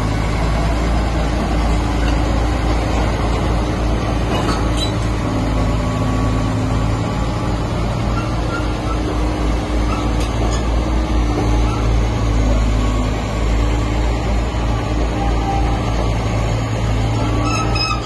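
Komatsu D85E-SS crawler bulldozer's diesel engine running steadily as the machine drives and turns on its tracks.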